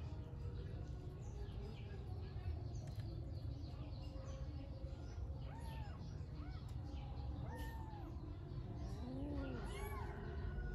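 Kittens mewing: several short, high calls that rise and fall, mostly in the second half, over a steady low background rumble.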